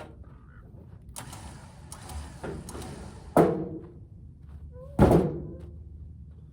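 A hiss lasting about two seconds, then two loud heavy thuds about a second and a half apart, each with a short ringing tail.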